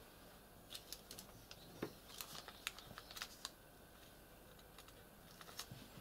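Faint small clicks and taps, a cluster of them in the first half and a few more near the end: fingers handling a small circuit board on a silicone work mat.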